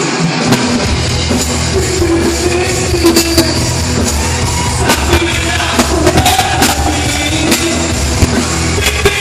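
Rock band playing a song with a singer; the low bass and drums come in just after the start.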